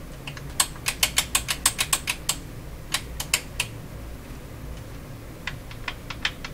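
Irregular mechanical clicking from the Bang & Olufsen Beocord 2000 De Luxe reel-to-reel tape transport as its fast-forward control is worked: a quick run of clicks from about half a second in lasting nearly two seconds, a few more around three seconds, and fainter ones near the end.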